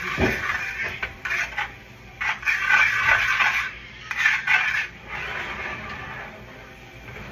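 A metal spoon scraping and stirring in a metal pan on the stove, in irregular strokes of a second or less with short pauses, plus a dull bump right at the start.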